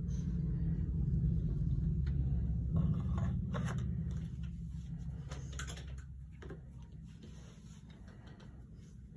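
A low rumble that swells and then slowly fades, with light scrapes and clicks of a knife and leather sheath being handled: the steel blade drawn out of its leather sheath, the strongest scrapes about three and a half and five and a half seconds in.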